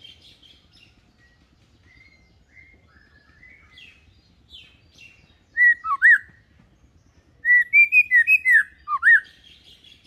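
White-rumped shama singing: soft, scattered twitters at first, then two loud phrases of clear whistled notes that slide up and down, about five and a half seconds in and again about two seconds later.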